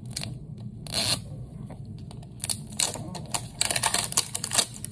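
Plastic wrapping crinkling and tearing as a Mini Brands capsule ball is peeled open by hand: a run of small crackles and clicks, with a burst about a second in and a dense flurry near the end.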